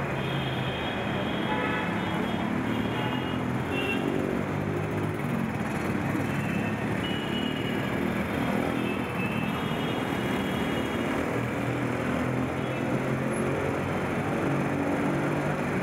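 Busy city road traffic passing close by: cars, motorcycles and auto-rickshaws, a steady din of engines and tyres with short high tones now and then.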